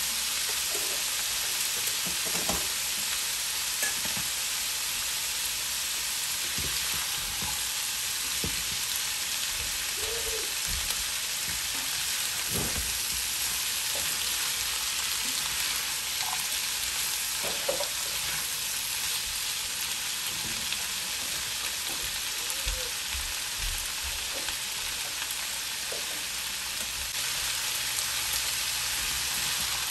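Bottle-gourd skin strips, broccoli and peas sizzling steadily as they fry in oil in a pan. A spatula scrapes and knocks in the pan now and then as the vegetables are stirred.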